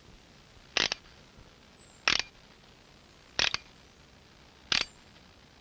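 Four short scrapes about 1.3 s apart as a toy car is hauled up on a string in short tugs.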